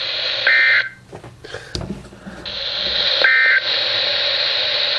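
Two short buzzy EAS/SAME digital data bursts from a NOAA weather radio receiver, over steady radio static hiss. Coming right after the warning text, they are the end-of-message signal. The hiss cuts out for about a second and a half between the bursts, with a few clicks.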